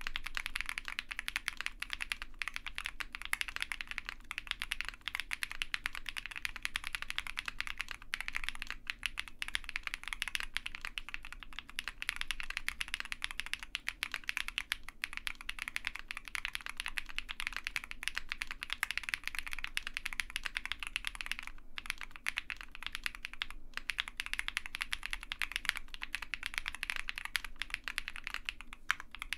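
Continuous fast typing on an OwLab Mr Suit gasket-mounted tenkeyless mechanical keyboard with lubed Zaku switches, a POM plate, PE foam and plate foam, and GMK ABS keycaps. The clacks are steady apart from two brief pauses about three-quarters of the way through.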